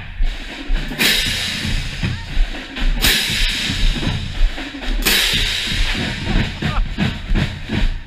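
Marching drumline playing a cadence: a steady drum rhythm with a line of hand-held crash cymbals clashing together three times, about two seconds apart, each crash ringing for about a second.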